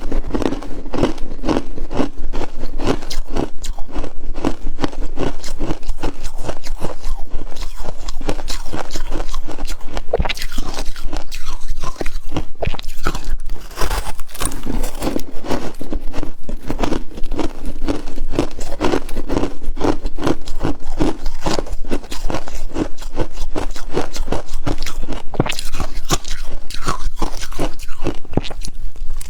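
Close-miked crunching and chewing of frost, bite after bite of dense crackly crunches throughout.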